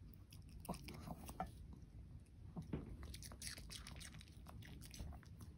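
Pomeranian chewing food taken from chopsticks: a run of quick, irregular mouth clicks and smacks.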